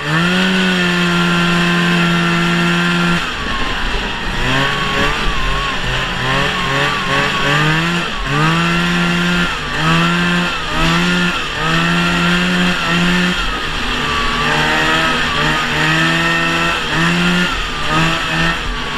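1971 Ski-Doo TNT 640 snowmobile's two-stroke engine running under way, its note held steady for the first few seconds, then revving up and falling back over and over as the throttle is worked.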